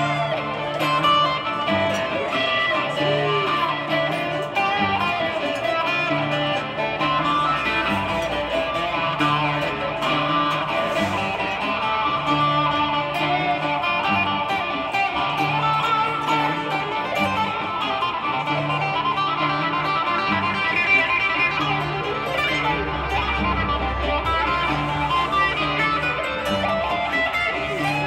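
Acoustic guitar played solo in a long instrumental passage: picked melody lines over a low bass figure that repeats about every two seconds, with no singing.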